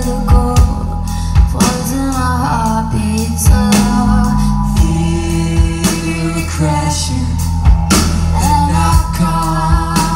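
Live rock band playing: electric guitars, bass and drum kit with sung vocals over them, heard from the crowd in a club.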